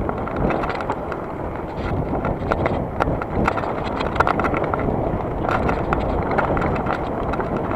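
Footsteps on a forest trail, short irregular knocks a few times a second, over a low rumble of wind on the microphone.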